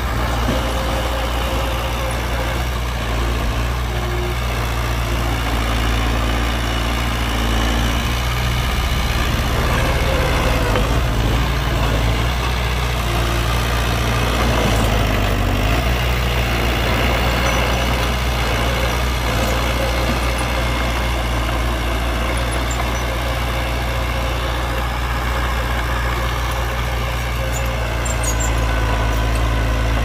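Heavy diesel engines of a dump truck and bulldozer running steadily with a low rumble, the pitch shifting slightly in the middle.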